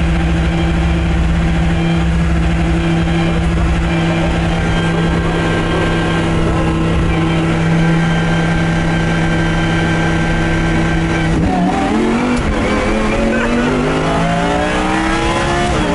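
Lamborghini Huracán race car's V10 heard from inside the caged cabin on a warm-up lap, holding steady revs, then dipping about eleven seconds in and climbing steadily in pitch as it accelerates.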